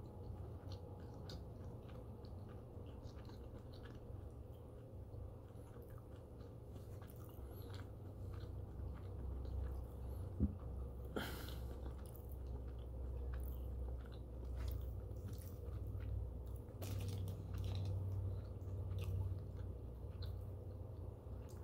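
Close-miked chewing of breakfast food, with wet mouth clicks and small crunches. There is one sharp click about ten seconds in and a few louder crunches after it.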